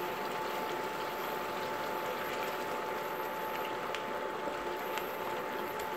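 Chicken, vegetables and canned tomatoes cooking in a square nonstick pan on an induction cooktop, with a steady sizzling hiss and a steady high hum from the cooktop. A few light clicks of a utensil against the pan come about four and five seconds in.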